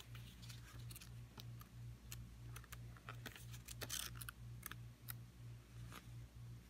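Paper rustling and crackling as a small printed quick-start booklet is unfolded and its pages are flipped, with a denser riffle of pages about four seconds in. A faint low hum sits underneath.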